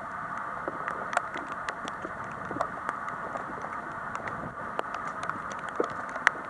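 Scattered light taps and ticks over a steady hiss: rain dripping and pattering onto rubble and vegetation, mixed with footsteps on debris. One sharper tap comes near the end.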